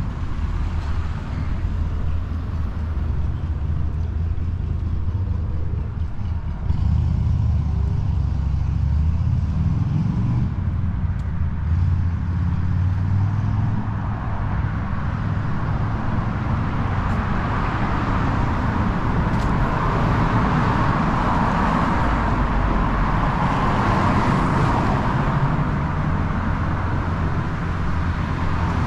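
City street traffic: cars and other motor vehicles running past with a steady low engine rumble. A louder passing vehicle swells up in the second half.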